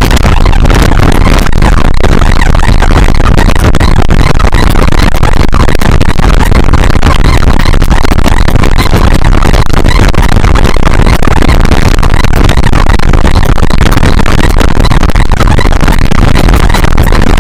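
Heavy wind rush and road noise from riding at speed, loud and even, with no pitched lines or beat standing out.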